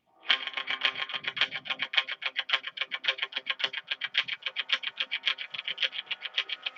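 Intro music that cuts in suddenly: electric guitar with effects, picking a fast, even run of notes at about eight a second over held tones.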